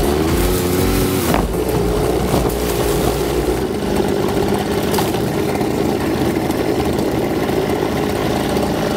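Petrol brush cutter, fitted with a cutting head made from chainsaw chain, running at high speed as it cuts through grass.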